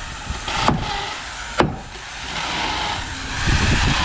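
Corded electric drill driving screws into a wooden hull plank, the motor running with shifts in speed, with two sharp clicks in the first couple of seconds.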